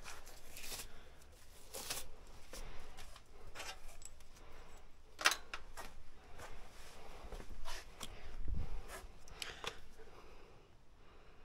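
Intermittent handling noises of hands working around the jetter's engine bay and picking up an oil bottle: scattered light clicks, rustles and knocks, with one sharper click about five seconds in and a dull knock a little later.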